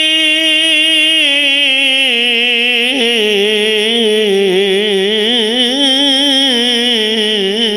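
A man's voice chanting a long, drawn-out note in Arabic, part of the sermon's opening praise. The held note drops in pitch, breaks briefly about three seconds in, then carries on lower with quick wavering ornaments.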